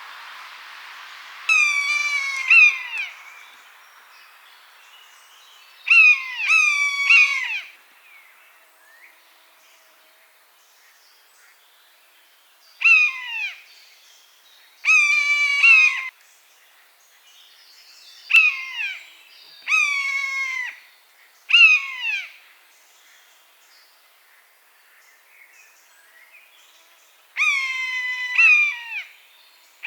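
Common buzzard calling: a series of drawn-out, down-slurred mewing calls, each about a second long and falling in pitch. They come singly or two or three close together, every few seconds, with quiet spells between.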